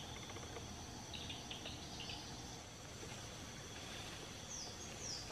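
Steady high-pitched chorus of insects, with a few short faint chirps about a second in and two quick falling chirps near the end.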